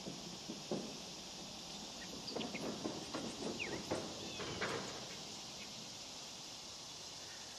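Steady high-pitched insect chorus, with a run of light clicks and knocks about two to five seconds in and a couple of short chirps among them.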